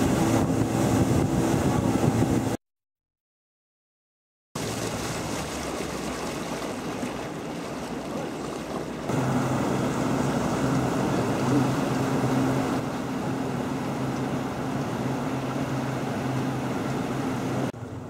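A boat motor running steadily under wind and water noise, with a low, even hum. About three seconds in, the sound drops out completely for two seconds, then the motor comes back, a little louder from about nine seconds in.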